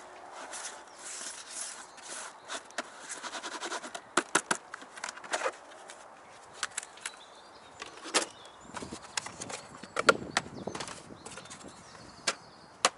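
Method-feeder groundbait being rubbed through a riddle into a bowl, a soft grainy rustle at first. Then come scattered sharp clicks and knocks as the riddle is lifted off and set down and bait tubs are handled.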